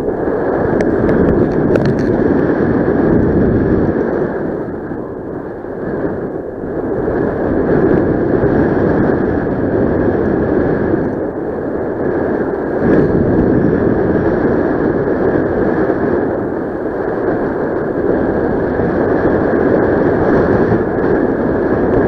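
Wind rushing over the microphone during a paraglider flight: a steady, loud rumble that swells and eases every few seconds.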